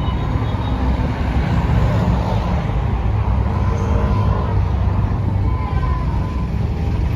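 City bus running, a steady low engine and road rumble.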